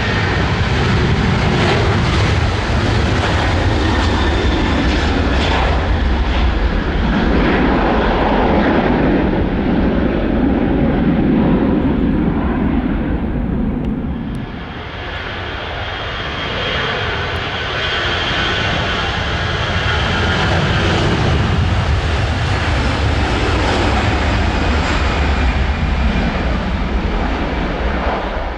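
Jet airliner turbofan engines at takeoff thrust: a Boeing 737 climbing away with a steady rumble and hiss. About halfway through the sound dips suddenly, then a second airliner's takeoff rumble swells and eases off a little near the end.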